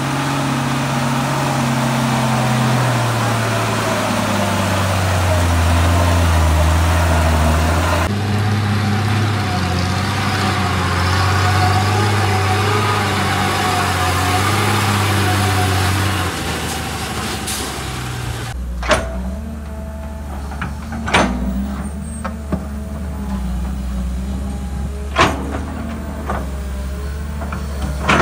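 Heavy diesel engine of a loaded Mitsubishi Fuso ten-wheel dump truck labouring up a dirt ramp, its pitch sinking over the first few seconds as it lugs under load, then running steadily. From about 19 s a quieter diesel runs steadily, broken by a few sharp metallic clanks that fit the bucket of an excavator working the track.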